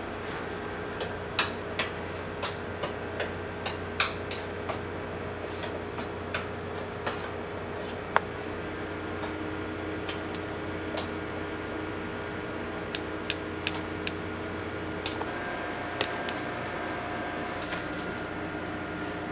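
A metal spoon clicking and scraping against a metal tray as a sugary coating is scooped and sprinkled over candy-coated apples. The sharp, irregular ticks come thickest in the first half and grow sparser later, over a steady background hum.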